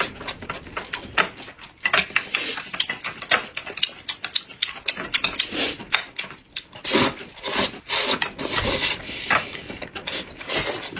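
People slurping and chewing noodles, a run of close, wet slurps with a few longer drawn-in slurps near the end.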